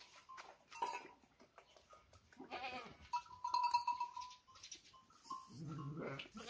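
Sheep and goats bleating: a higher call about two and a half seconds in and a deeper one near the end. A small bell rings out and fades about three seconds in, with light clinks between the calls.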